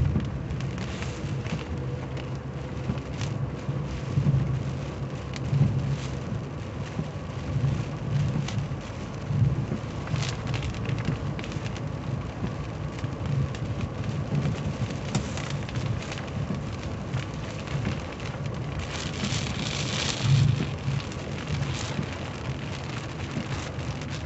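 Heavy rain pattering and drumming on a car's windshield and body, heard from inside the cabin while driving, over a low, uneven rumble. A brief louder hiss comes near the end.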